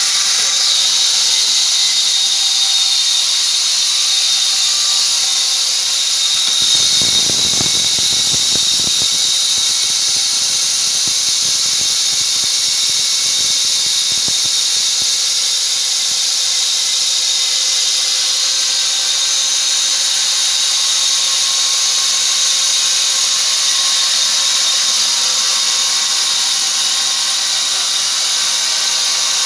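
Small double-cut bandsaw mill running, its blade giving a steady, loud, high-pitched whine. A low rumble joins in about seven seconds in and fades out by about fifteen seconds.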